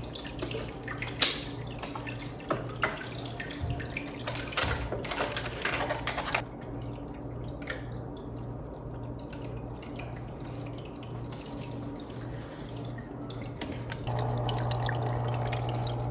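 Aquarium filter running, its outflow splashing and trickling into the tank with a steady low hum. Over the first six seconds come crackles and taps from the plastic water bottle and packing tape being handled. About 14 seconds in, the water and hum get louder and stay steady.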